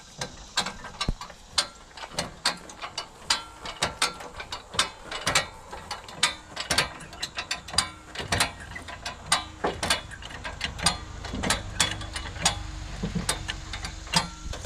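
High-lift farm jack being worked by its long handle to raise a car, its steel pins and climbing mechanism giving a quick, uneven run of metal ratchet clicks.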